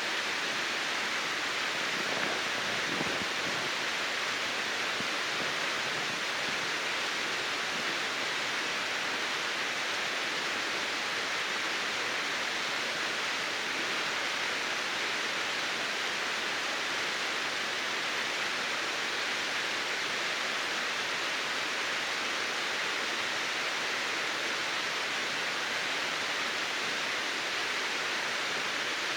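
Steady, even rush of water from a waterfall that is mostly frozen over.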